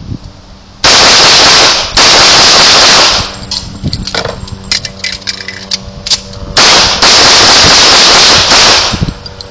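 Semi-automatic pistol fired in fast strings, so loud that the recording clips and the shots run together: a string about a second in, another just after, and a longer one from about six and a half seconds to nine. In the gap between them come sharper, quieter metallic clicks and knocks from a magazine or pistol change.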